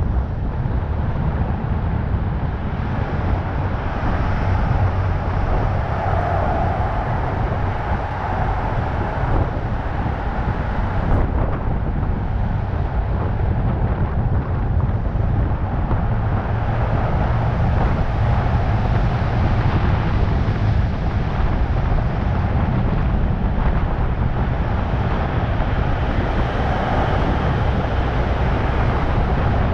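Steady low rumble of a moving vehicle's engine and tyres, mixed with wind noise buffeting the roof-mounted microphone.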